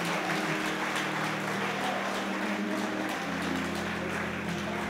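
Crowd applauding the announced winner, over music with held low notes that shift about three seconds in.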